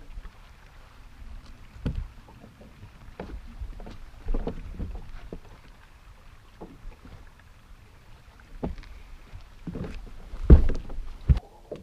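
Scattered knocks and handling noises from an angler working with a largemouth bass on a bass boat's deck, with the loudest thumps near the end as he stands and steps on the deck.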